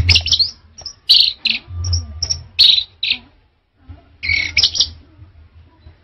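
Orange-headed thrush singing: a quick run of short, varied, clear whistled phrases, a pause about three seconds in, then another phrase, over a low background rumble.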